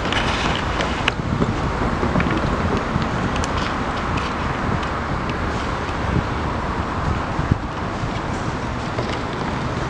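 Wind buffeting the camera microphone, a steady rushing with a few short knocks from the camera being handled.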